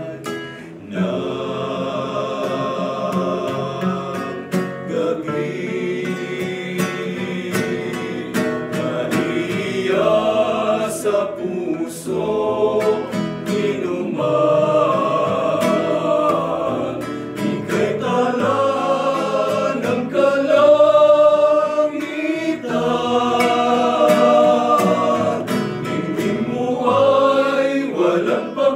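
A group of men singing a hymn together, accompanied by a strummed acoustic guitar.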